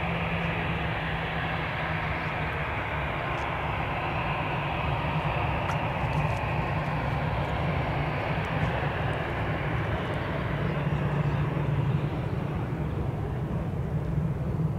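Airbus A320-200 jet engines running at low power as the airliner rolls slowly along the runway after landing: a steady roar with a low hum underneath.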